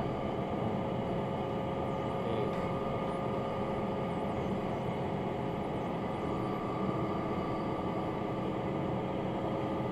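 Steady hum of a stationary diesel railbus idling, with a few held tones over a low drone and a lower tone joining about six seconds in.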